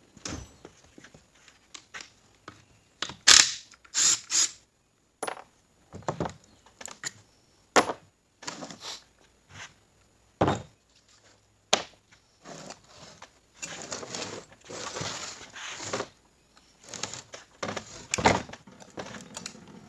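Metal parts of a 4L60E automatic transmission and hand tools clinking and knocking on a workbench as the transmission is taken apart: a string of separate sharp knocks, the loudest about three seconds in, with a longer stretch of scraping and rattling after the middle.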